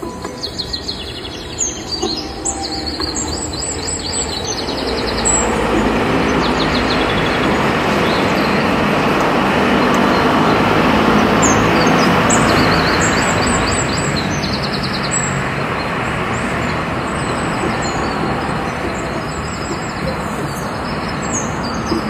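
A passing vehicle's rumble swells over several seconds, peaks near the middle and slowly fades, with birds chirping high above it. A few sharp taps come early on.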